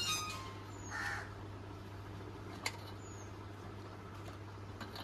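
A crow cawing twice, once right at the start with a falling call and again, harsher, about a second in. Under it a low steady hum, and a few sharp small clicks from the metal terminal and clip being handled.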